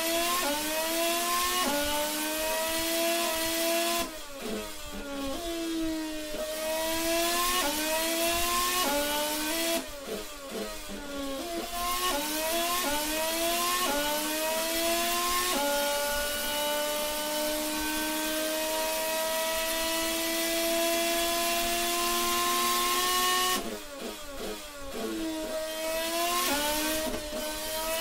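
Mercedes 2014 Formula 1 turbocharged 1.6-litre V6 development engine revving through the gears, its pitch climbing in steps with a sharp drop at each upshift. It lifts off with a crackling rattle of downshifts about four, ten and twenty-three seconds in. In the second half it holds one long, slowly rising pull at high revs.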